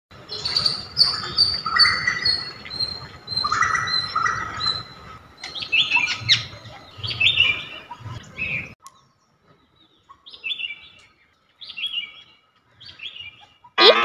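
Songbirds chirping and whistling in a busy chorus of quick, high, repeated calls over a low background hum. After about nine seconds it thins to a few short, scattered chirps.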